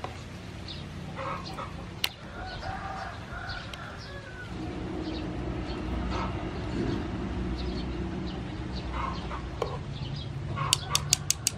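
Chickens clucking now and then over the steady bubbling of a pan of boiling water. Near the end comes a quick run of about five sharp metal clinks as the utensils knock against the pan.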